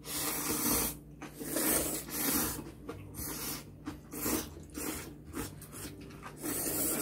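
Two people slurping spicy ramen noodles: a run of loud, airy slurps one after another, some of them overlapping.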